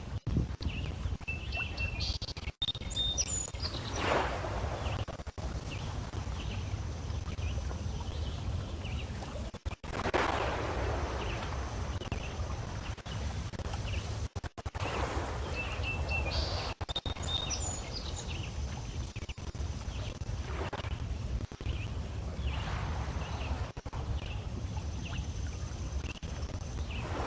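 Small lake waves lapping and splashing against shoreline stones, in soft washes that swell and fade every few seconds over a low steady rumble.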